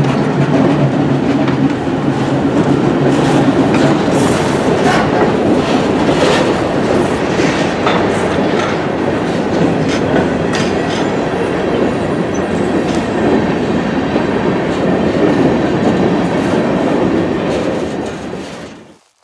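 Freight train passing close by. A Union Pacific diesel locomotive's engine drones for the first couple of seconds, then covered hopper cars roll past, wheels clicking over the rail joints. The sound fades out near the end.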